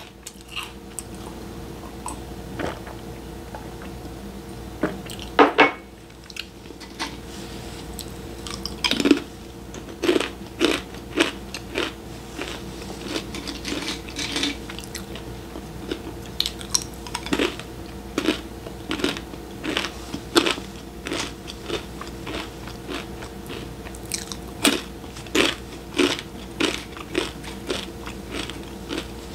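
Close-up crunching and chewing of crisp snacks, with sharp crunches coming about once or twice a second from about nine seconds in. A faint steady hum runs underneath.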